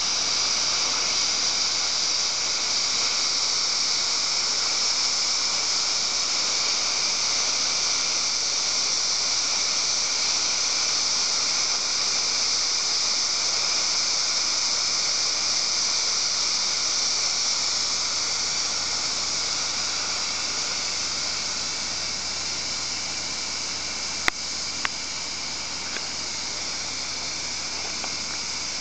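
Steam hissing steadily from the pressure valve of a Fagor Splendid 10-quart pressure cooker, growing a little quieter after about twenty seconds. Two sharp clicks come near the end.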